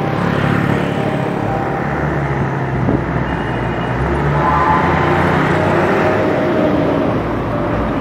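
Street traffic, cars and motorbikes passing with their engines running, heard over steady wind rumble on the microphone of a moving bicycle.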